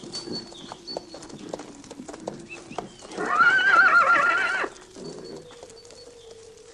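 A horse whinnies loudly, one long wavering neigh lasting about a second and a half, midway through. Scattered hoofbeats sound around it.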